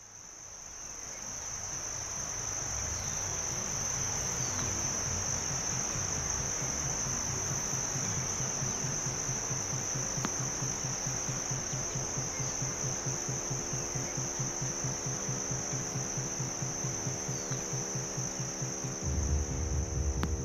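Steady high-pitched chorus of insects fading in at the start, over a low pulsing drone. Steady low tones build up from about halfway through, and a deeper hum comes in near the end.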